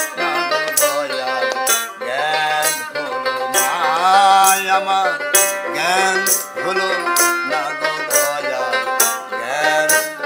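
Dotara plucked in an instrumental interlude of a Baul folk song, its notes sliding and waving, over a steady beat from a shaken rattle.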